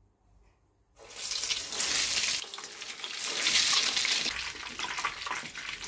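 Egg-coated bread slices (torrijas) sizzling in hot sunflower oil, starting about a second in with a dense crackling hiss. The sizzle swells twice, then settles to a steadier, quieter fry.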